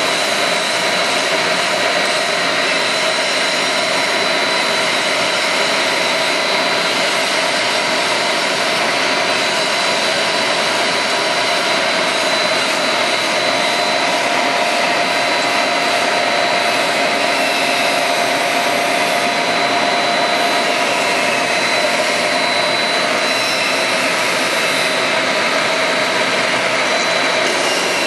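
Twin-die blown film extruder line running: a loud, steady rushing hiss of machinery and moving air, with a high steady whine and lower steady hums over it.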